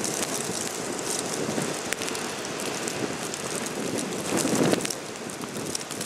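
Blizzard wind blowing steadily, buffeting the microphone, with a stronger gust a little after four seconds in and a few faint ticks over a hiss like rain.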